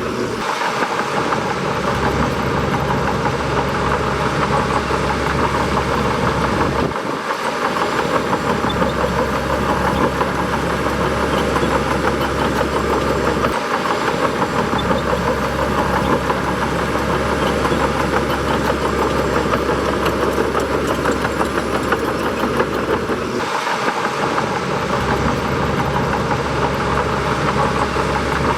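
Bulldozer's diesel engine running steadily, with three brief dips in its low rumble.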